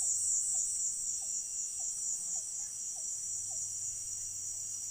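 Steady high-pitched insect chorus of crickets or cicadas, pulsing slightly, with a bird repeating a short falling whistle about every half second that stops a little after halfway.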